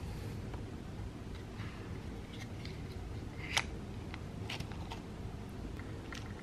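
Hands handling the hard plastic case of Apple EarPods, with light clicks and rustles, and one sharp snap about three and a half seconds in as the case lid is opened, over a steady low background hum.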